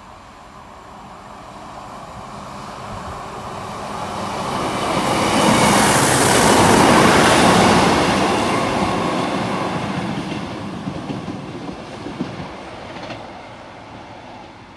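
Network Rail Class 950 two-car diesel multiple unit passing the station, its engine and wheel noise swelling to a peak about six to eight seconds in and fading as it draws away, with a few sharp clacks near the end.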